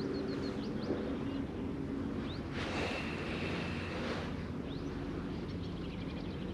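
A motor hums steadily, with short rising bird chirps above it. A whirring noise comes in about two and a half seconds in and lasts about a second and a half.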